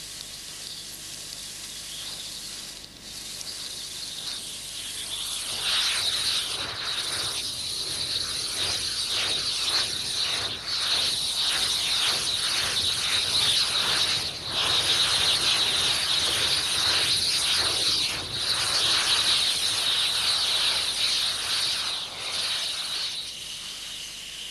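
Large petrol fire burning around a composite propane cylinder, crackling, with a steady high hiss of propane escaping and burning that comes in about five seconds in. Near the end the hiss turns quieter and lower.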